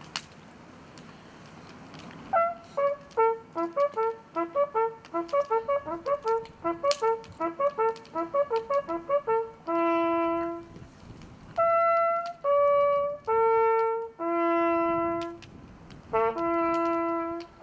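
Small brass hunting horn blowing a ceremonial hunting signal, starting about two seconds in. First comes a quick run of short notes leaping among a few of the horn's natural tones. It then broadens into a slower phrase of long held notes.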